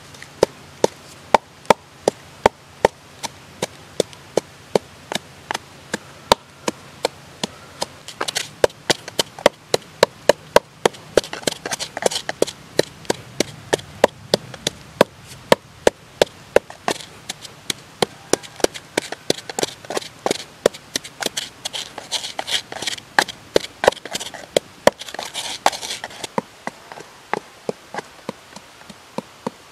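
Pestle pounding chili and salt in a mortar: sharp, steady knocks about two a second, with a gritty grinding scrape between strokes in the middle stretch.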